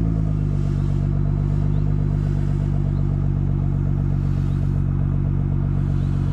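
Nissan GT-R engine idling steadily through its exhaust, an even low note that settles slightly in pitch in the first moment.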